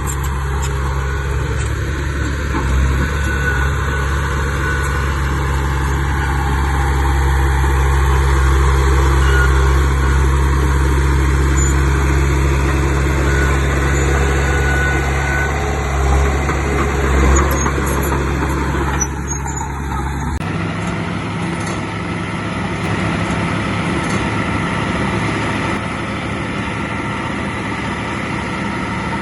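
Heavy diesel engine of earthmoving machinery running steadily, its sound changing abruptly about two-thirds of the way through.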